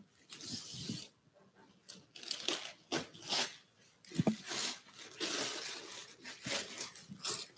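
Gift wrapping paper being torn and crumpled by hand in short, irregular rips as a present is unwrapped.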